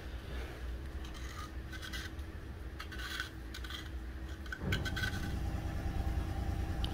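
Steady low machine hum with a few light clicks. About four and a half seconds in, a louder motor noise comes in and keeps running.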